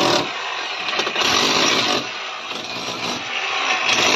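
Electric chipping hammer with a chisel bit cutting a channel into a cement-brick wall: a continuous loud rattling hammer and grind, growing louder and softer as the tool is pressed in and eased off, loudest about a second in and near the end.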